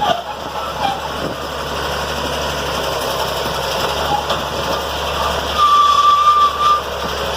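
Road-works machinery running steadily while digging up the old road surface, an engine hum under a constant rumble. About six seconds in a steady high tone sounds for about a second.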